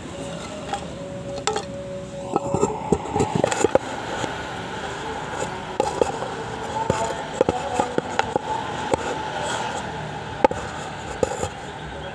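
Irregular clicks, knocks and scrapes of hand tools working on a Suzuki Katana starter solenoid switch as it is opened up, with a steady hum in the first few seconds.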